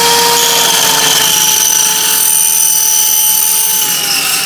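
ACZ mini cut-off saw with a 185 mm carbide-tipped blade running under load, its motor giving a steady high whine with a metallic screech as the blade cuts through steel; the pitch sags slightly after about a second and the sound drops off right at the end as the cut finishes.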